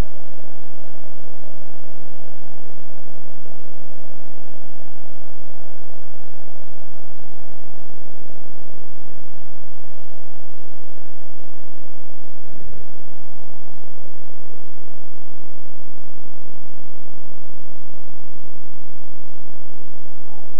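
Steady stadium crowd noise from a football match broadcast, laid over a constant low hum. A short low thump comes about two-thirds of the way through.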